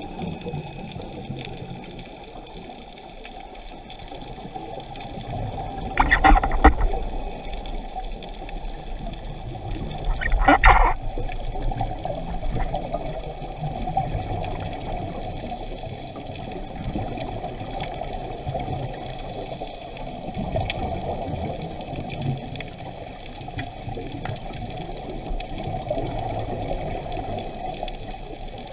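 Underwater sound through a camera housing: a steady low rush of water. Two louder bubbling bursts come about four seconds apart, the diver's scuba regulator venting exhaled bubbles.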